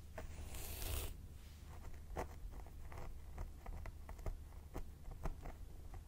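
Fingernails scratching and picking at the scalp through hair, recorded close up: a brief rasping scrape in the first second, then a run of short, crisp crackles and ticks, two or three a second.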